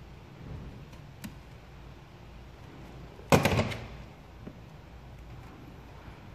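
Vinyl wrap film crackling sharply once as it is handled and lifted on the grille, about three seconds in, the crackle fading over about half a second. A faint click comes a little after one second.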